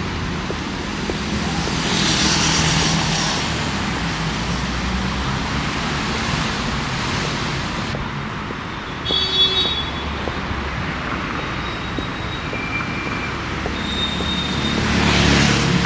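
City street traffic: cars and buses running past steadily, one passing close about two seconds in and another near the end. About nine seconds in there is a brief high-pitched tone.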